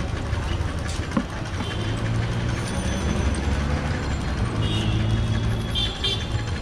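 Street traffic noise with a motor vehicle's engine running steadily close by, a low rumble throughout. A few brief high-pitched tones sound about five to six seconds in.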